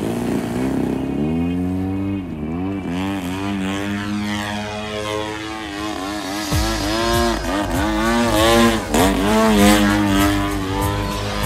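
Desert Aircraft DA-120 twin-cylinder two-stroke petrol engine of a 103-inch Extra NG RC aerobatic plane, swinging a large propeller through takeoff and aerobatics, its pitch rising and falling again and again with the throttle. A low rumble with crackling joins about six and a half seconds in.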